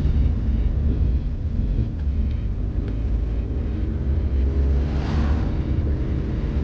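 Steady low rumble of a moving vehicle's engine and tyres on the road, with a hiss of wind and road noise; about five seconds in, a hiss swells and fades briefly.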